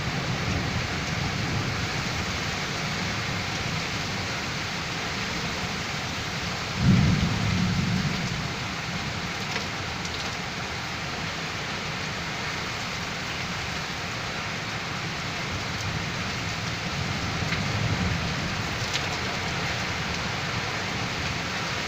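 Steady heavy rain in a windy thunderstorm, with a sudden loud clap of thunder about seven seconds in and a weaker rumble near eighteen seconds.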